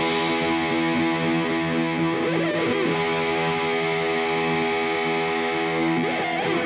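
Background music with sustained, distorted guitar chords, cutting off abruptly at the end.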